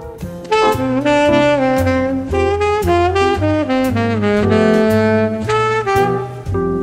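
Background jazz music with a saxophone playing the melody over a bass line and a steady beat.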